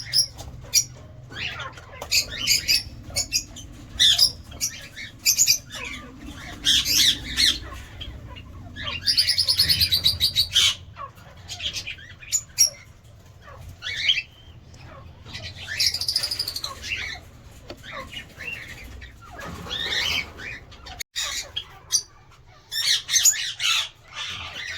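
Lovebirds calling: many short, shrill chirps and squawks overlapping, with a rapid run of repeated notes about ten seconds in.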